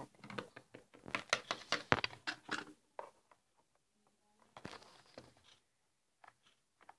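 A quick run of clicks and knocks for about three seconds, then a few more around five seconds in and scattered taps: small plastic toys being handled and knocked together close to the microphone.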